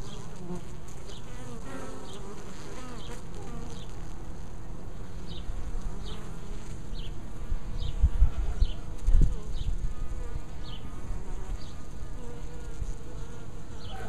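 Honey bees buzzing at the hive entrance, a steady hum of foragers flying in and out with loads of pollen. A couple of low bumps come about halfway through.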